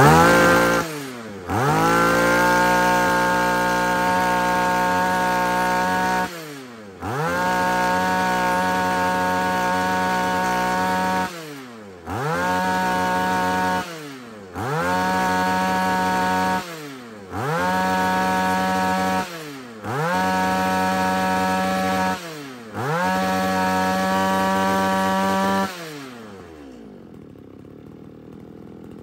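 Komatsu 2750 brush cutter's two-stroke engine being revved to full throttle and let off about eight times. Each rev is held for two to four seconds, its pitch sweeping up fast and gliding back down. It settles to a quieter idle for the last few seconds.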